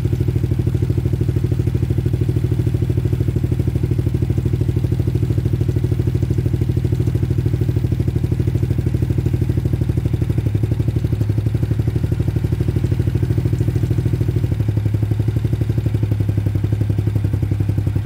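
Trailmaster Challenger 300 go-kart's engine running steadily at idle while the adjustment screws on its newly fitted carburetor are turned; its speed drops a little about ten seconds in and again near the end, following the screw adjustments.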